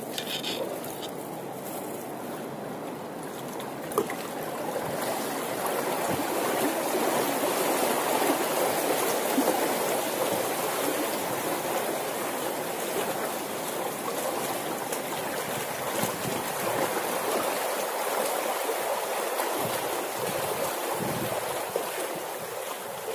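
Sea water sloshing and lapping against a steel ship's hull and the boat, a steady rush of water noise, with a single sharp click about four seconds in.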